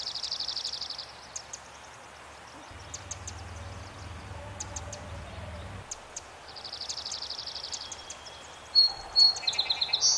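Wild songbirds singing: a fast, high trill twice (at the start and again about two thirds of the way in), short high chirps throughout, and loud clear whistled notes near the end. A faint low hum runs under the song through the middle.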